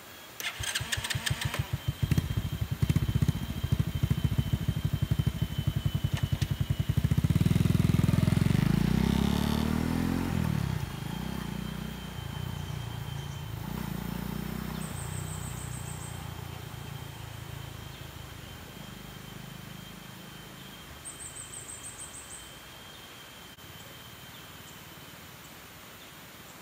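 Aveta Ranger 110's single-cylinder, air-cooled 110 cc four-stroke engine on its stock exhaust. It starts with a clatter, idles for several seconds, then revs up as the bike pulls away, its pitch rising and dropping with the upshifts. The sound then fades steadily as the bike rides off into the distance.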